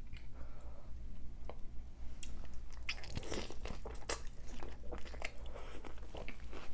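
Close-miked biting and chewing of a birria taco, a crisp fried tortilla with beef, giving a run of crunches that come thickest from about two seconds in.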